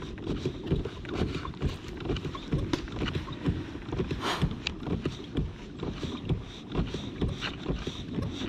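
A fishing kayak moving and turning on the water: water lapping against the plastic hull and irregular knocks and rattles of gear aboard, with a short swish about four seconds in.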